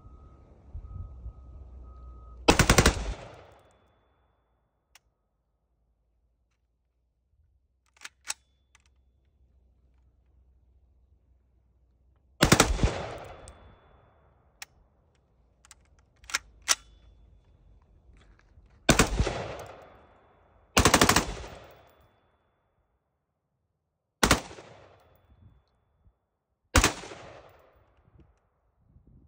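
Bushmaster ACR rifle being bump-fired: six short bursts of rapid shots, each ringing out and fading, separated by pauses of a few seconds. The last two bursts are briefer, and a few faint clicks fall in the gaps.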